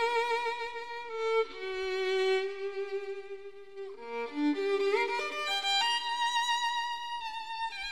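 Background music: a violin playing long held notes with vibrato, moving to a new note every second or two.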